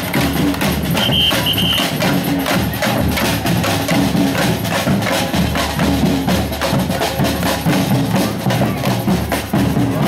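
A marching carnival drum group playing a steady, loud rhythm on large bass drums and snare drums. A short high whistle sounds about a second in.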